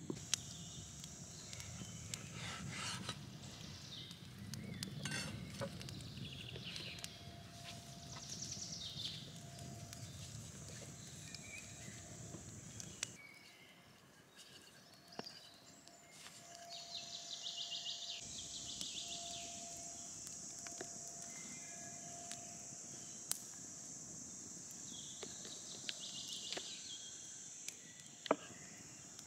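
Woodland ambience: birds singing in short trilled phrases over a steady high hiss. There is soft rubbing and a few light knocks from pasta dough being kneaded and rolled with a wooden rolling pin on a wooden board.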